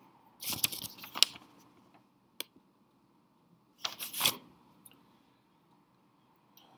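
Handling noise: two short bursts of rustling with sharp clicks, about half a second in and again about four seconds in, with a single sharp click between.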